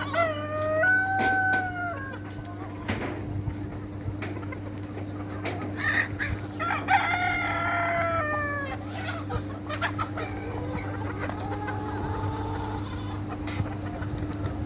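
Chickens clucking while roosters crow: a long crow at the start, another about six seconds in, and a fainter one near the end. A steady low hum runs underneath.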